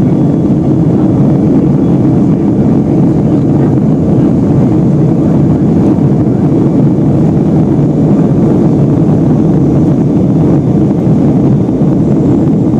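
Steady cabin noise inside a Boeing 757-200 in flight: the low, even rush of its Pratt & Whitney PW2037 turbofan engines and the airflow past the fuselage.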